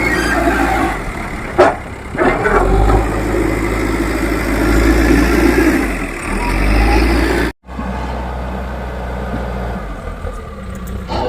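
Diesel engine of an old Leyland Deere 435 backhoe loader running under load while it levels earth, with a sharp knock about one and a half seconds in. The sound breaks off for an instant about two-thirds of the way through.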